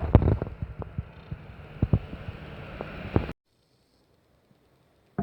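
Handling noise: a string of knocks and clicks over a steady hiss as glass bottles are moved and set down. The sound cuts off abruptly about three seconds in.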